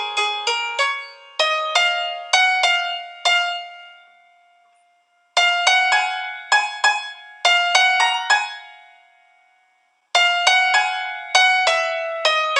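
Background music: a light melody of short, sharply struck notes that ring and fade, in quick phrases that break off twice into silence for about a second before starting again.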